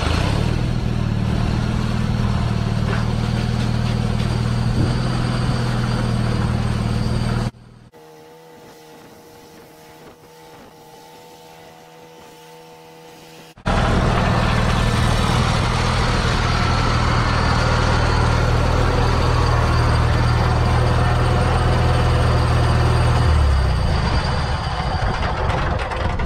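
Garden tractor engine running steadily as the tractor drives. About a third of the way in, the sound cuts abruptly to a much quieter steady hum for about six seconds, then the loud engine comes back.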